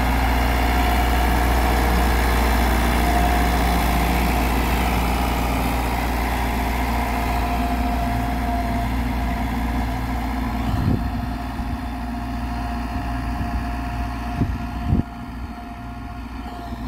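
Massey Ferguson tractor's diesel engine running steadily under load as it pulls a tiller and a plank leveller across the field, growing fainter in the second half as it pulls away. A few short low thumps come near the middle and near the end.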